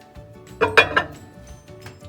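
A glass measuring cup being set into a microwave oven: a few quick clinks of glass against glass about half a second in.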